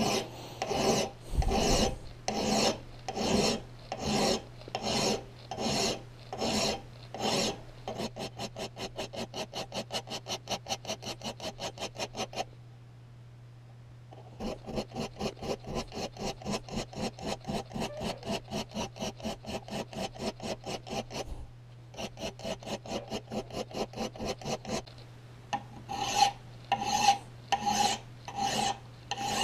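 Hand file scraping across the steel edge of a hatchet head held in a vise: long strokes about once a second, then quick short strokes about four a second, broken by two brief pauses, with long strokes again near the end. A steady low hum runs underneath.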